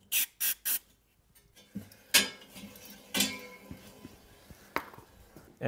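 Three quick spurts of aerosol lubricant hissing from a spray can's straw into the gap between a snowblower auger and its shaft. Then the auger is spun by hand, with a few metallic clanks and rattles.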